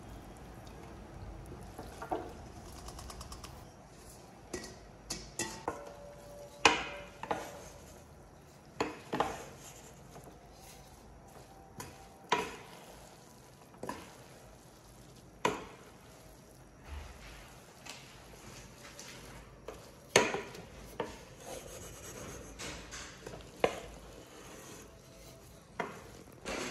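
Wooden spatula clacking and scraping against the side of a large metal cooking pot as noodles and vegetables are tossed and mixed, with soft rustling of the food between irregular sharp knocks every second or so.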